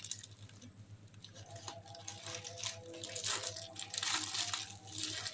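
Parcel packaging being handled and opened by hand: crinkling and rustling with tearing sounds, sparse at first and getting busier from about a second and a half in.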